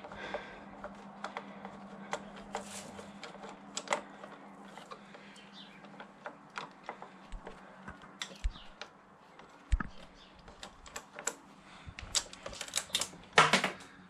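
Light, irregular clicks and taps of a JIS screwdriver and fingers working a tight screw free from under a motorcycle's ignition lock, with a quicker flurry of clicks near the end.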